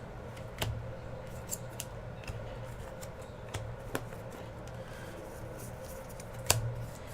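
Baseball cards being handled and flipped through by hand: scattered sharp clicks and snaps, the loudest about six and a half seconds in, over a steady low hum.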